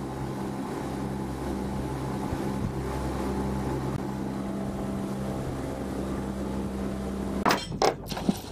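Twin Evinrude 300 two-stroke V6 outboard motors running steadily at speed, a steady drone. Near the end it cuts off and a few sharp metallic clanks follow as an anchor chain goes over the bow.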